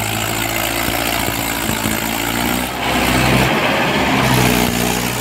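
Mahindra tractor's diesel engine running under load as the tractor pulls with its front wheels off the ground. The engine note changes about three seconds in.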